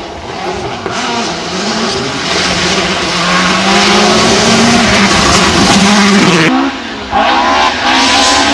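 Rally car engine at full throttle on a gravel stage, revs climbing and growing louder as the car approaches, over a steady hiss of tyres on loose gravel. About six and a half seconds in the sound breaks off abruptly and another engine is heard at high revs.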